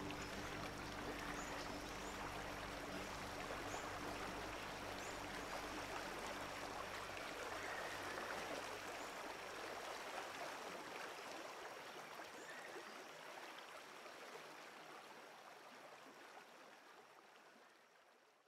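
Steady rush of flowing river water, with a low steady hum underneath that dies away about halfway through; the water sound then fades out gradually near the end.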